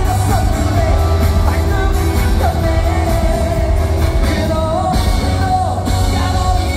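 Live concert music played loud over a large hall's PA: a male singer holding long, sliding notes over a band with a heavy, steady bass.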